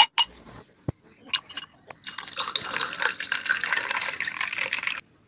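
Rose milk poured into a glass tumbler, a splashing fill that starts about two seconds in and runs about three seconds before cutting off suddenly. A few short clicks come before it.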